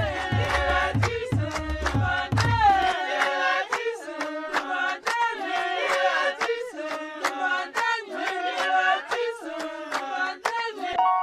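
Upbeat background music with a sung melody over a clicking beat. The low bass beat drops out about three seconds in, and the track ends on a held chord.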